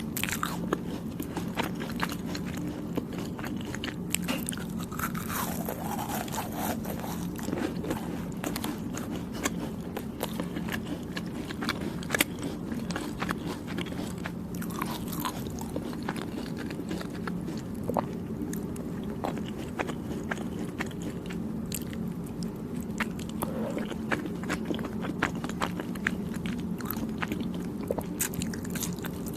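Close-up chewing of soft, chewy Thai desserts, with many small wet clicks and smacks of the mouth throughout, over a steady low hum.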